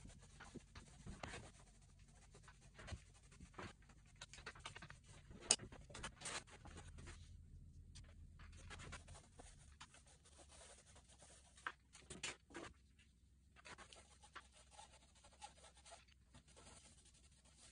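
Faint scratching, rustling and light taps of a plastic stencil sheet and paint roller being handled on stretched fabric, with a few sharper taps, the loudest about five seconds in.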